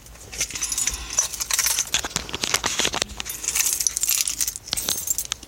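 Keys jangling, a rapid run of light metallic jingles and clicks.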